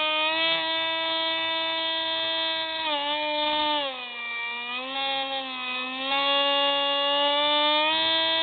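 Electric motor and propeller of a Hubsan Spyhawk RC model plane in flight, heard from its onboard camera: a steady whine with many overtones. It drops in pitch about three seconds in, stays low for a couple of seconds, then climbs back up about six seconds in.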